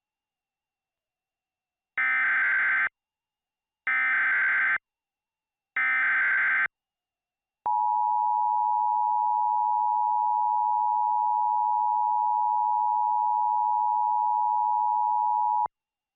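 Emergency Alert System tones. Three short bursts of SAME header data, each a raspy digital chirp about a second long, come about two seconds apart. About a second after the last burst, the EAS two-tone attention signal starts: a steady, shrill tone held for about eight seconds that cuts off suddenly, marking the start of a new alert message.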